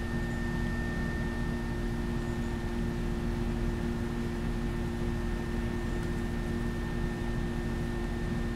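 Steady background hum and hiss with a few fixed tones, unchanging throughout.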